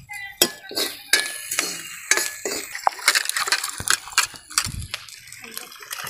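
Irregular sharp clinks of a metal spoon against aluminium cookware, mixed with hands squeezing and stirring chopped greens in a metal pot.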